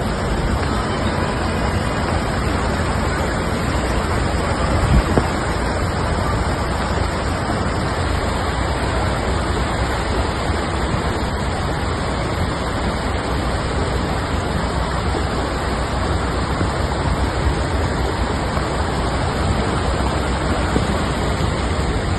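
Floodwater rushing in a steady, loud wash of noise with a deep rumble underneath.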